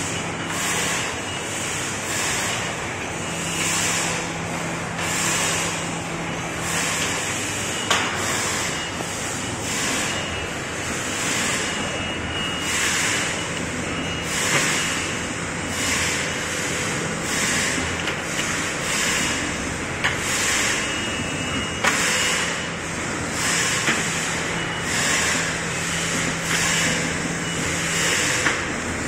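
Desktop multi-axis automatic soldering robot running its cycle: a steady mechanical whir with a hiss that pulses about once a second. A low hum comes and goes, and there are a few sharp clicks.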